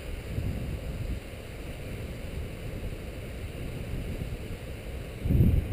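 Wind buffeting the microphone, a steady low rumble that swells louder near the end.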